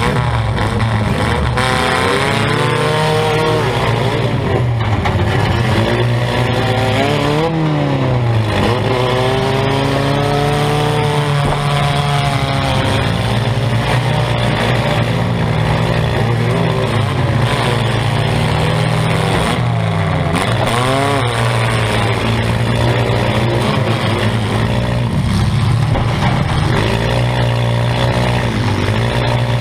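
Compact demolition derby car's engine running hard, its revs rising and falling over and over as the car is driven. Heard from inside the stripped-out cabin.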